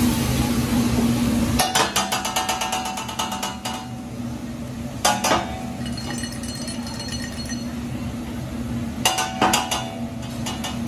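Hibachi chef's metal spatulas clacking rapidly against the steel teppanyaki griddle: a fast run of clicks about two seconds in, a couple more around five seconds, and another quick burst near nine seconds. A loud sizzle of sauce hitting the hot griddle over the frying rice dies down about a second and a half in, leaving a quieter steady frying hiss.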